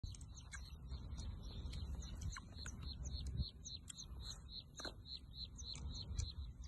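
Birds chirping in quick repeated short notes, about four a second, over a low rumble.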